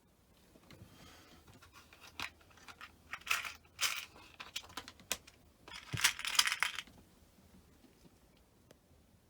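Hands working small cable connectors and wiring: a run of clicks and rustles, with two louder rasping bursts about three and six seconds in.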